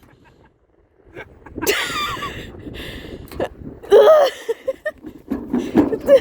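A person's wordless vocal sounds: a few short outbursts with bending pitch, about a second and a half in, about four seconds in, and again near the end.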